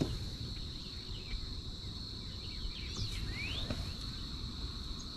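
Steady high-pitched insect drone over a low background rumble, with a bird giving a couple of quick sweeping chirps about three seconds in.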